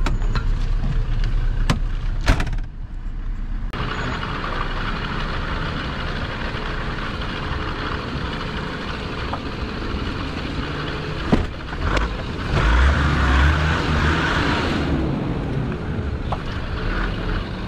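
Off-road 4x4 engine running as the vehicle drives along a rutted mud track, with tyre and body noise and a few sharp knocks. The engine grows louder for a couple of seconds about two-thirds of the way through.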